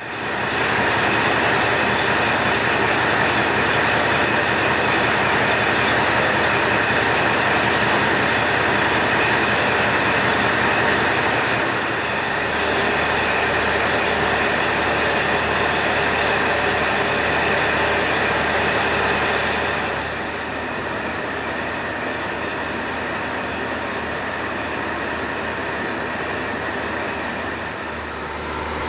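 KiHa 47 diesel railcar standing at the platform with its diesel engine idling: a steady low throb under a continuous mechanical hum. It gets somewhat quieter about twenty seconds in.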